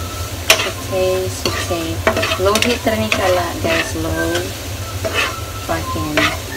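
A metal spoon scraping and stirring food that is sizzling in a nonstick frying pan, with repeated scrapes over a steady frying hiss.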